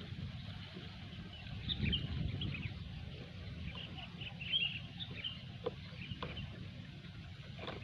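Sooty-headed bulbul (kutilang) giving busy chattering calls in short, scattered chirps, over a steady low rumble.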